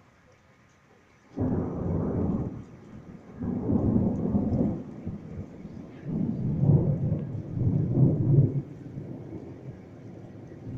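Thunder: a loud rumble breaks in suddenly about a second and a half in, then rolls on in several low surges before easing off near the end.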